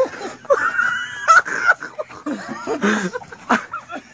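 People's voices shouting in alarm, with a high-pitched held cry or scream from about half a second to a second and a half in, followed by shorter, lower shouts.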